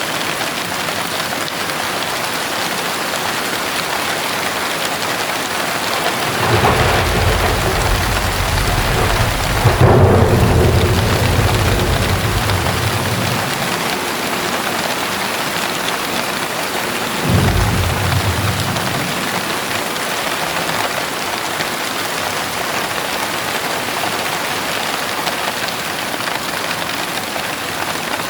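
Heavy rain falling with a steady hiss, with two rolls of thunder: a long low rumble that builds about a third of the way in and slowly fades, then a shorter one a little past the middle.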